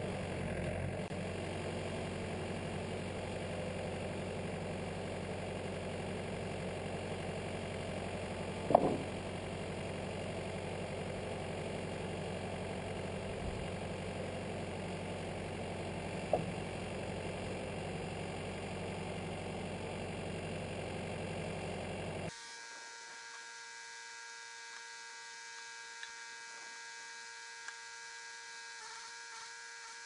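Wood-Mizer LT70 portable band sawmill running steadily, with two sharp knocks, the first the louder. About 22 seconds in, the running sound cuts off suddenly to a quieter steady hum.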